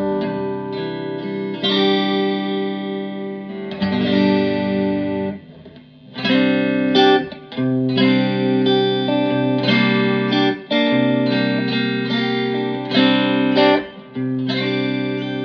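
Fender Telecaster electric guitar played through a Fender Blues Junior IV tube amp set clean with volume, master and reverb at the middle position: chords struck and left to ring. There is a short break about six seconds in before the playing resumes.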